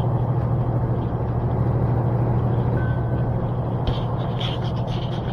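Steady low drone of a semi truck's diesel engine and road noise heard inside the cab while driving.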